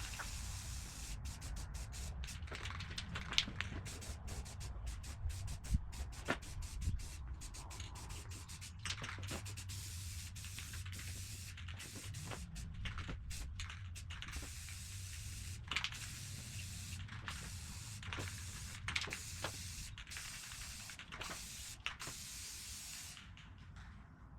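Aerosol spray paint can hissing in a long run of bursts with many brief breaks, stopping near the end.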